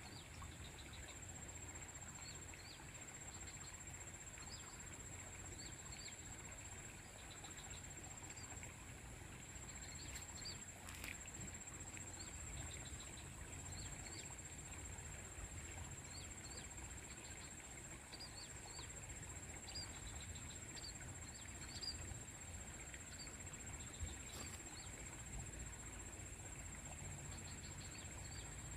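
Faint outdoor ambience of short bird chirps every second or two over a steady high-pitched whine and a low wind rumble. Two brief clicks come about a third of the way in and again later.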